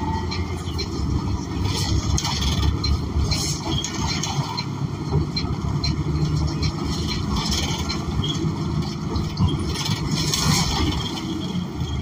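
Cabin of a transit bus: its Cummins Westport ISL G natural-gas engine drones steadily, with occasional short rattles from the interior.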